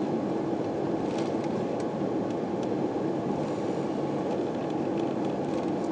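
Steady rumble of an Airbus A340's cabin as the airliner rolls on the ground just after landing, with a few faint rattles.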